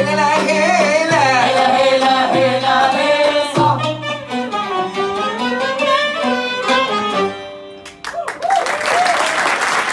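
Arabic ensemble of oud, violin and accordion with voices singing a final phrase in maqam hijaz, ending about seven seconds in. About eight seconds in, audience applause begins.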